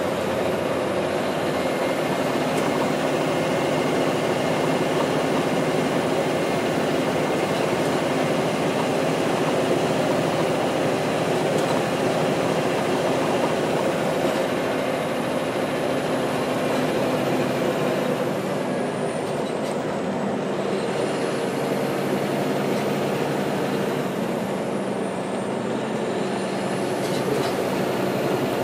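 Caterpillar C13 diesel engine of a NABI 416.15 transit bus running steadily while the bus is under way. Its note eases slightly about two-thirds of the way through.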